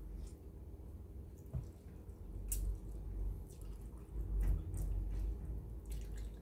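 Wet mouth sounds of a person eating by hand: chewing and sucking on cooked moringa pods, with several short, sharp smacks.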